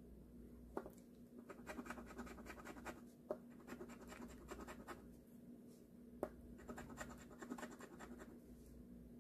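The coating is being scratched off a scratch-off lottery ticket, in three short runs of quick scratching strokes. A few sharp ticks fall between the runs.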